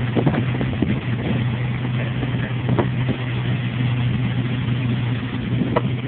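Boat engines running steadily on a sea trial after repair, a constant low hum with a wash of noise over it.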